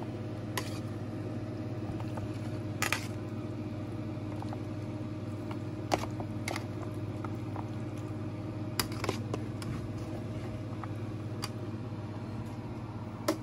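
Metal tongs clicking and scraping against a metal pan and black plastic takeout containers as pasta is served, a scattering of sharp clinks over a steady low hum.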